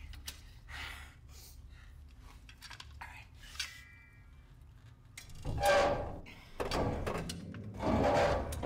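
A man grunting with effort as he forces a tool against the bottom of a metal roll-up door, with knocks and clunks of metal on metal. The two loudest strained efforts come in the second half.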